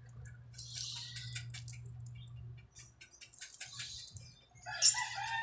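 Shrink-wrapped phone box crinkling and clicking as it is handled, over a steady low hum. A bird calls near the end, the loudest sound.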